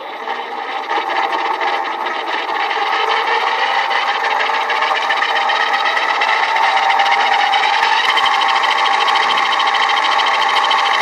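36 V 250 W geared hub motor (CS250HL-DBX13) of an electric scooter spinning its rear wheel with no load, giving a steady whirring gear whine. It builds over the first couple of seconds and then holds.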